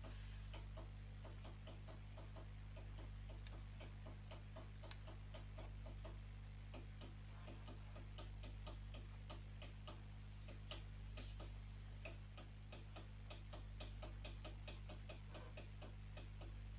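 Faint, rapid ticking, a few ticks a second, over a steady low hum.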